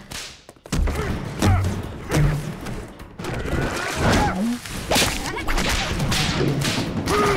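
Rapid string of action sound effects: whip cracks and whooshes mixed with heavy thuds and crashes, one of them a barrel smashing through a brick wall.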